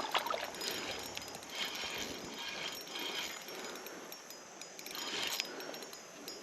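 Running creek water with scattered small splashes and clicks as a hooked smallmouth bass is reeled in.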